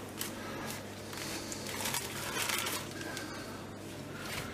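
Soft, irregular rustling and crinkling as thin sheets of yufka dough are torn into pieces and handled, with a few light crackles.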